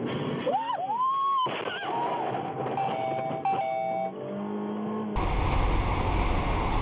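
Short tyre squeals rising and falling in pitch as a vehicle ahead skids and crashes, followed by a few held steady tones. About five seconds in it cuts to steady road and engine rumble inside a moving car.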